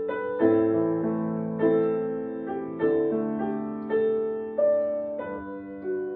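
Solo piano playing a slow, gentle original piece: a chord with a bass note struck about every second, each ringing and fading before the next.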